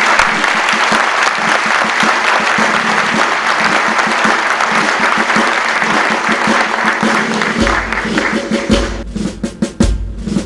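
Audience applauding with dense, steady clapping. Near the end the clapping thins and drums come in, with deep bass-drum hits and sharp snare strikes.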